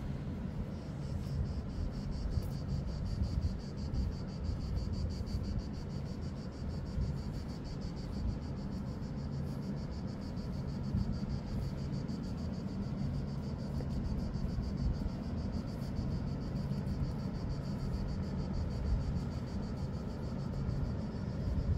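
Cicada chirring in a steady, high, fast-pulsing buzz that starts about a second in, over a low steady rumble.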